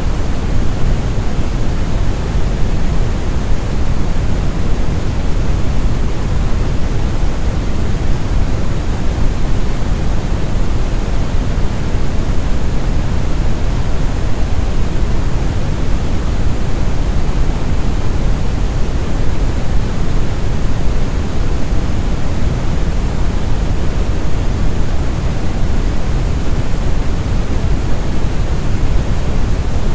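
Steady deep brown noise: a smooth, unbroken rumbling hiss with most of its weight in the bass, thinning toward the highs.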